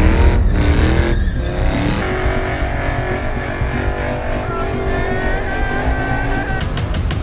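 A car engine revving hard, its pitch climbing and falling, with a high tyre squeal joining in the second half, as in a burnout or drift.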